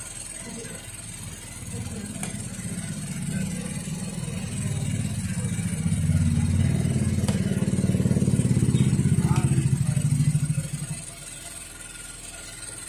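A motor vehicle's engine passing close by: a low, finely pulsing drone that grows louder over several seconds, holds, then drops away quickly about eleven seconds in.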